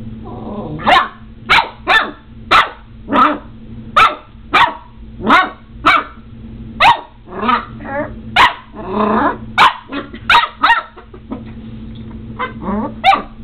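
A seven-week-old Border Collie puppy barking in play: a run of about sixteen sharp, high yaps, one or two a second. Low growls come in near the start and again about nine seconds in.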